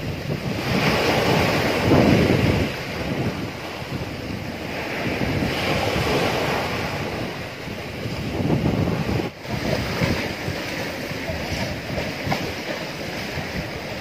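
Surf on a sandy beach: small waves breaking and washing up the sand, swelling louder every few seconds and then easing.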